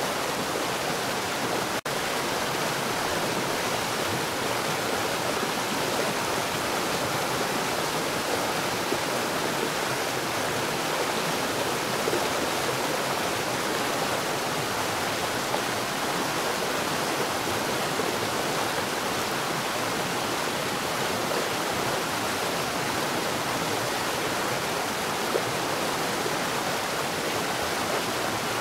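Water pouring down at a rapid rate underground, a steady unbroken rush of falling water.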